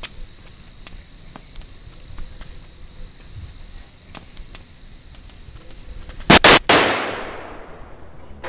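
Crickets chirping steadily. About six seconds in, two sharp, very loud bangs come in quick succession and cut the chirping off, followed by a rushing noise that fades away over about two seconds.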